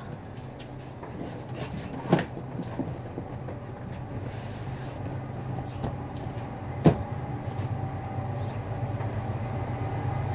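Large cardboard box being handled and pressed down by hand, with two sharp knocks, one about two seconds in and one about seven seconds in, over a steady low hum.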